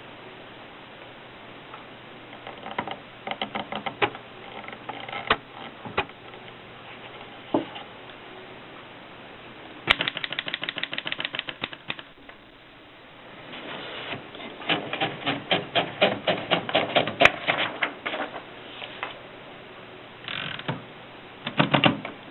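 1939 Erika 5 portable typewriter being typed on: its typebars strike in scattered single clicks at first, then in fast, even runs of keystrokes, with a heavier rattle near the end.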